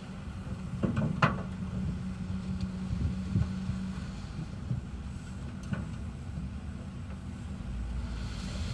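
Heavy earthmoving machine's diesel engine running steadily, with a few sharp knocks: two close together about a second in and one more past the middle.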